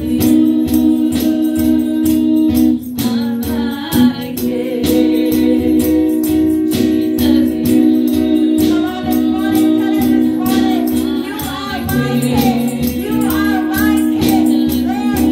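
Live gospel worship music: several women singing into microphones over sustained instrumental chords and a steady percussion beat.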